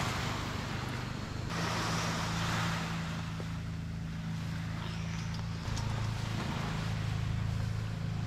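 Portable gas canister stove burning under a pot with a steady low rumble, its sound shifting twice. A short hiss rises over it early on.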